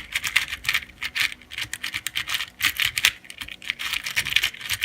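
Old-plastic Dayan 2x2 speedcube being turned by hand for its first turns out of the box: a quick, irregular run of plastic clicks as the layers snap round.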